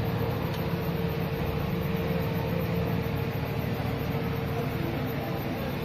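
Gas conveyor pizza oven running: a steady whir of its fans with a low rumble and a faint hum that fades out near the end.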